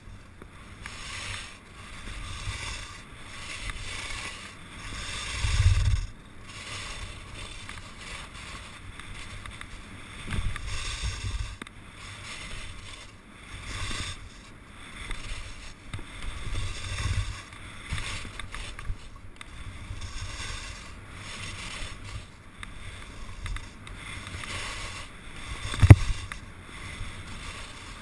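Skis scraping and hissing over firm snow in a repeated rhythm of turns, with wind buffeting the camera microphone in low rumbles. A single sharp knock near the end.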